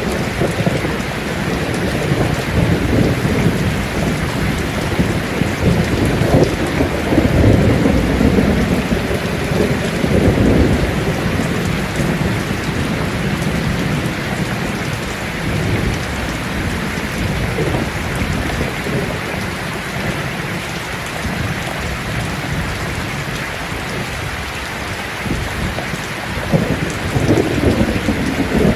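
Steady rain falling on leaves, an even hiss, with low rumbles swelling up several seconds in and again near the end.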